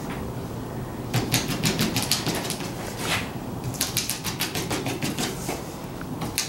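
Rapid sharp clicking taps, about six a second, in two runs with a short pause between, as holes are poked into a landau top on a car roof so that trapped air can escape and the top won't bubble up.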